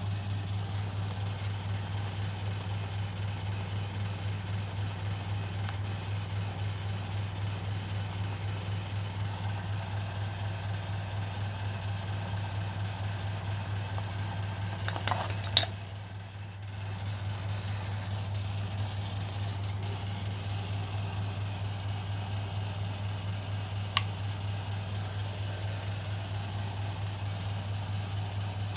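Washing machine electric motor running with a steady low hum that pulses rapidly. About halfway through there is a short clatter of clicks, the hum dips for a moment and then returns, and one more click comes later.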